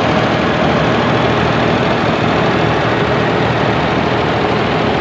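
A vintage John Deere 420 tractor's two-cylinder engine running steadily as the tractor drives slowly past.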